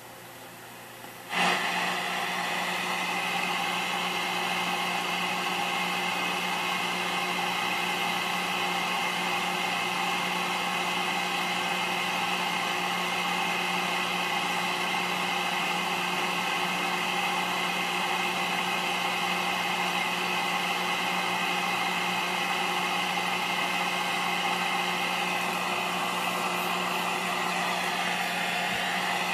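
Speaker of a Zenith 25CC50 hybrid tube colour television hissing with static once the set has warmed up: a steady rushing noise with a low hum under it, starting suddenly about a second in.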